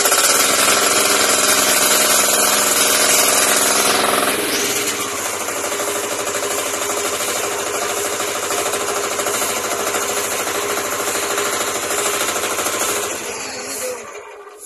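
Yanmar diesel engine driving a 3 kVA dynamo, running loud just after starting. About four seconds in its note changes and it settles into a steady run, then it stops shortly before the end.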